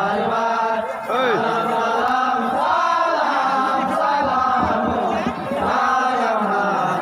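A group of men chanting a jari gan salutation song ('salam') together, several voices overlapping in drawn-out sung lines.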